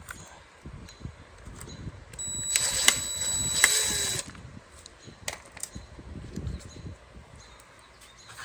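Cordless power driver running for about two seconds to back out a screw, with a steady whine and a couple of sharp clicks during the run. Light knocks and clicks of tool handling come before and after it.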